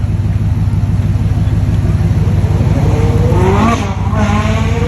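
Supercharged Hemi V8 of a Hellcat-era Dodge, running with a deep, pulsing exhaust. About three and a half seconds in it is blipped: the pitch rises, then drops away just before four seconds.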